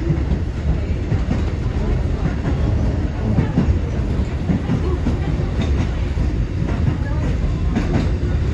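Kotoden Kotohira Line electric train running along the track: a steady low rumble, with irregular clacks of the wheels over rail joints.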